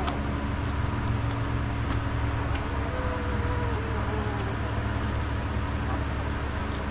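Steady low electrical or mechanical hum running throughout, with a faint wavering whine from about three seconds in that lasts a second or so.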